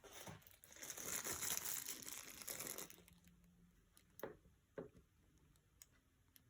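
Crinkling rustle of something being handled at the work table for about two seconds, then two soft clicks.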